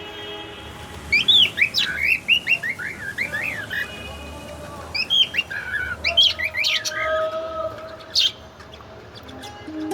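Budgerigars chirping and chattering in quick runs of short, high, up-and-down notes, in two bursts with a pause between.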